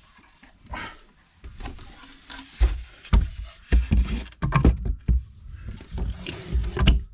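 Irregular knocks and thumps of a wooden bedside shelf unit being handled and held up against an RV bedroom wall to test the fit, growing busier about a third of the way in.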